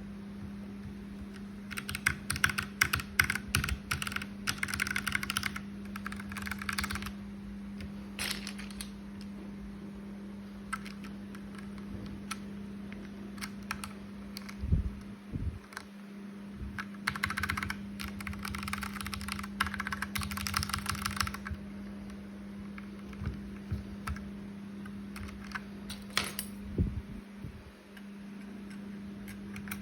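Keys of an RK61 mechanical keyboard clicking in two quick runs like typing, with scattered single clicks between them, over a steady low hum.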